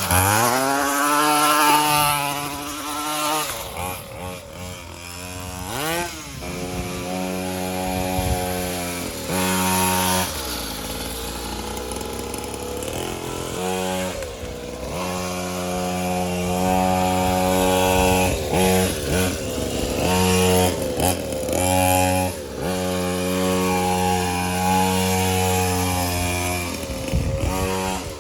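Mini moto's small engine being ridden, revving up and easing off again and again, with stretches held at a steady speed between.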